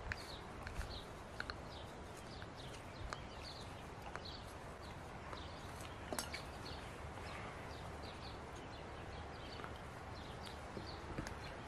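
Knife whittling a wooden peg by hand: a few sharp clicks and soft cuts. A faint high chirp repeats about twice a second over a quiet outdoor background.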